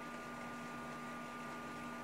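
Faint steady hiss with a constant electrical hum of a few fixed tones: the recording's background noise, with no toad call or other event.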